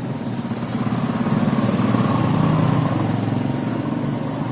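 An engine running with a fast, even pulse. It grows louder around the middle and eases off again.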